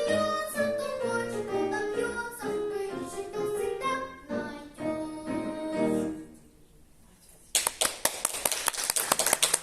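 A boy's voice singing the closing phrases of a song in trained classical style, with instrumental accompaniment; the music ends about six seconds in. After a short quiet gap, applause breaks out and continues.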